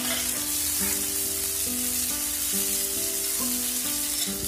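Boiled soya chunks sizzling as they fry in hot mustard oil in a kadhai, stirred with a spatula. Background music with held notes plays under the sizzle.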